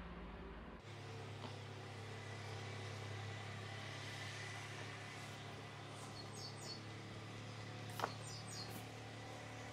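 A low steady hum under faint room noise, with a single light tap about eight seconds in.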